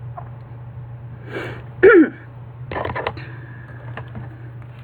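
Small clicks and rustles from handling a vinyl mini figure and its cardboard blind box. About two seconds in comes one short, louder throat sound, falling in pitch, from a person with a slight cough. A steady low hum runs underneath.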